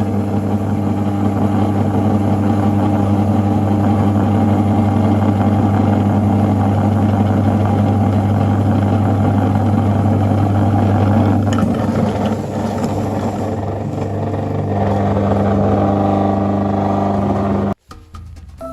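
Electric meat grinder running with a steady motor hum and a rough grinding rattle as material is forced through it. The sound shifts about twelve seconds in, then the motor cuts off abruptly near the end.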